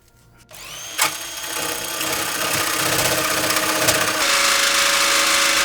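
Handheld electric power tool starting up about a second in, its motor whine rising, then running steadily as it cuts into the thin steel panel of a PC case, growing louder and hissier from about four seconds in.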